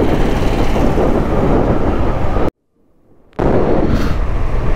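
Motorcycle on the move, with engine, road and wind noise heavy on the microphone. The sound cuts out abruptly for about a second halfway through, then comes back at the same level.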